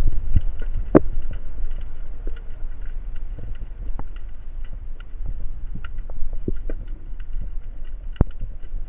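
Underwater ambience as heard by a camera below the surface: a steady low rumble of water movement with scattered faint clicks and ticks, two sharper clicks about a second in and near the end.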